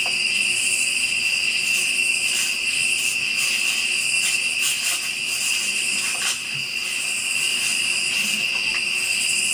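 Steady chorus of night insects such as crickets, a continuous high-pitched trilling, with a few faint clicks.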